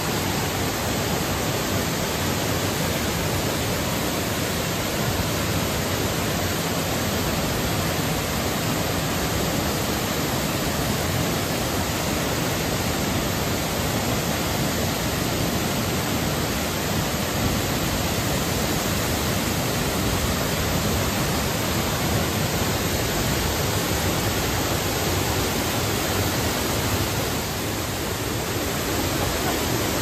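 Waterfall pouring into its plunge pool: a loud, steady rush of falling water, easing slightly for a moment near the end.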